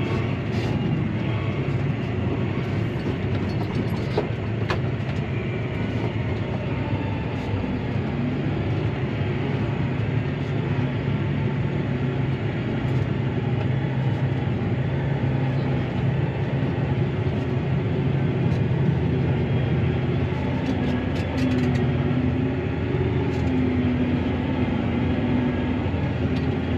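Claas Arion 650 tractor's six-cylinder diesel engine running steadily under load, heard from inside the cab, as the tractor pushes grass silage with its front loader. A wavering higher tone joins in about twenty seconds in, with a few light clicks along the way.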